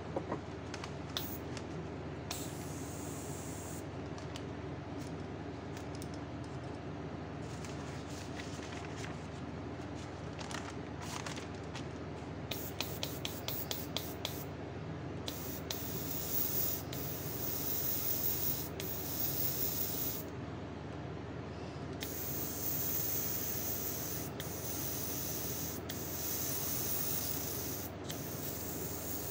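Airbrush spraying paint in on-off bursts of hiss. About halfway through comes a quick run of short puffs, then longer sprays of one to a few seconds each.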